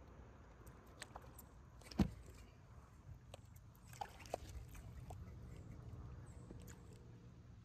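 Faint low rumble with scattered small clicks and knocks, the loudest a single sharp knock about two seconds in: fishing gear knocking about on a kayak.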